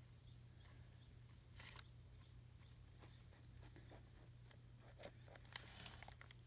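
Near silence with faint handling of paper craft pieces: a brief soft rustle, then a few light clicks and rustles near the end.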